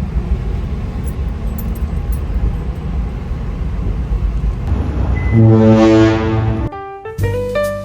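Steady low rumble, then about five seconds in a single deep blast of a ferry's ship horn lasting over a second. Piano music starts just after the horn stops.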